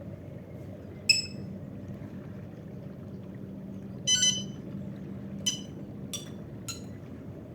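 XP MI-4 pinpointer's buzzer beeping in short, high-pitched chirps: one about a second in, a longer stuttering beep around four seconds in, then three quick ones near the end, over a steady low hum. The replacement buzzer is sounding again.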